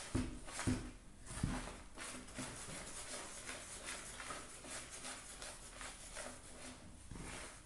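Fork stirring eggs into flour in a plastic mixing bowl: a run of quick scraping strokes, with a few louder knocks against the bowl in the first second and a half.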